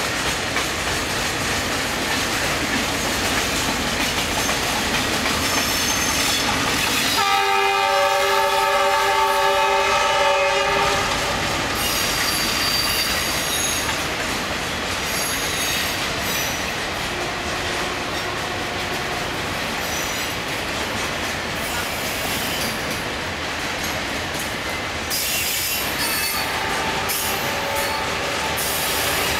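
Loaded freight wagons rolling past, their wheels clattering steadily over the rail joints. About seven seconds in, a train air horn sounds one loud chord of several pitches for about three and a half seconds; later, fainter tones come and go over the rumble.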